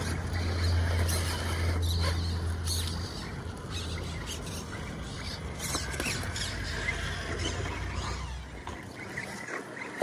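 Axial Capra RC rock crawler's brushless motor and geared drivetrain running at crawling speed, with tyres scraping and clicking on rock as it climbs past. The low drive hum drops after about three seconds and stops near the end.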